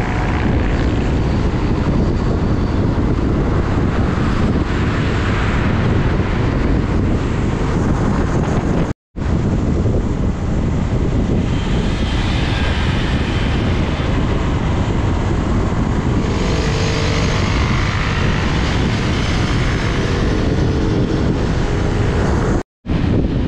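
Wind rushing over the microphone of a camera on a moving motorbike at highway speed, with road and engine noise underneath. The sound cuts out for a moment twice, once about nine seconds in and once near the end.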